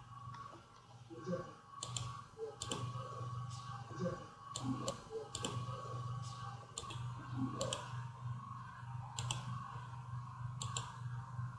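Computer mouse clicks, about ten sharp single clicks at irregular intervals, over a steady low electrical hum.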